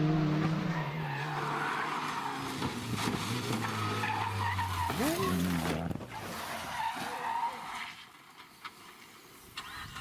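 Rally car engine running hard with tyres skidding, from the rally clip's own audio. It changes abruptly about six seconds in and goes much quieter near the end.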